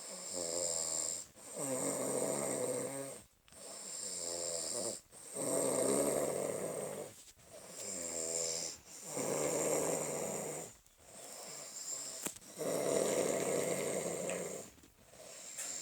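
A man snoring, a drawn-out snore on each breath in and out, each one to two seconds long, in an even rhythm with short pauses between.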